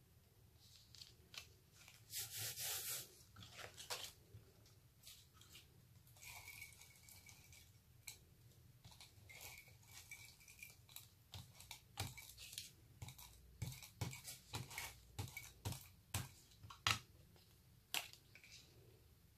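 Embossed cardstock panels being handled and pressed down onto a card base: a short rustle of paper about two seconds in, then soft sliding and scattered light taps and ticks.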